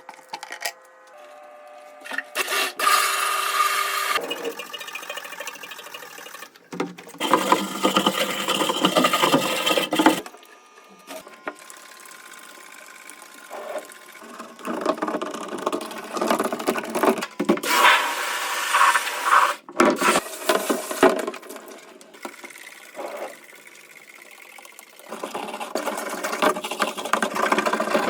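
Tool work on a washing machine during a drum-bearing replacement: several separate bursts of mechanical whirring and scraping, a few seconds each, with quieter pauses between.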